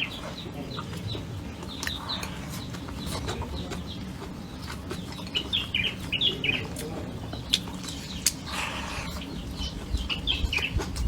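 Birds calling in short chirping bursts, three times, over a steady low background with scattered small clicks.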